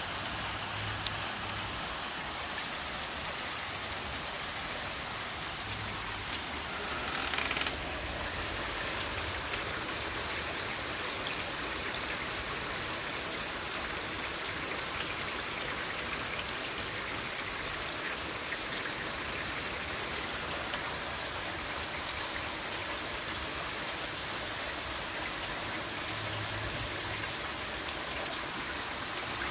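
Heavy rain falling steadily as an even hiss, with a brief louder rush about seven seconds in.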